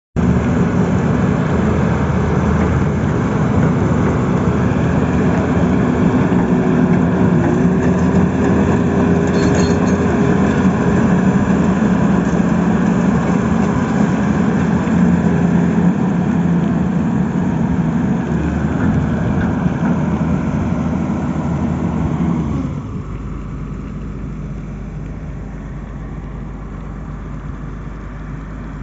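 Tata Hitachi tracked excavator's diesel engine running steadily at working revs. About 23 s in the sound drops abruptly to a quieter, steady low hum.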